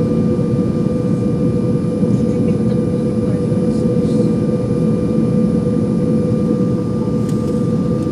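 Airliner cabin noise in flight: a loud, steady rush of engines and airflow with a constant hum, and a few faint clicks.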